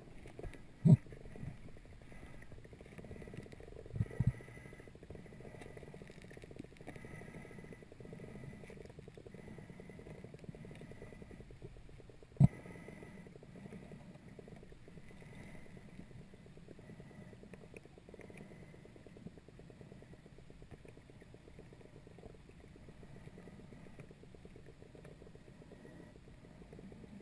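Muffled underwater ambience of a shallow mountain stream heard from an underwater camera, a steady low rumble of flowing water. A few sharp knocks cut through it: one about a second in, two close together around four seconds, and one near the middle.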